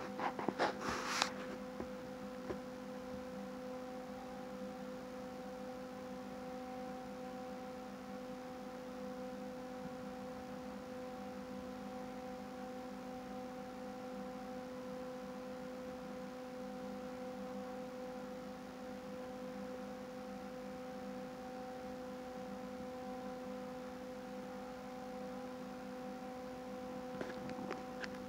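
Steady electrical hum made of several fixed pitches, with a brief rustle of movement in the first second.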